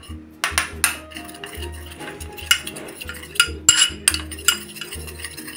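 A steel spoon clinking and scraping against a small ceramic bowl in irregular taps, stirring cornflour into water.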